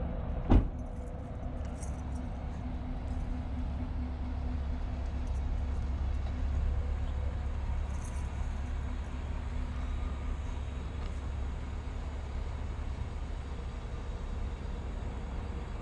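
Car driving, heard inside the cabin: a steady low engine and road rumble with a faint hum, and one sharp knock about half a second in.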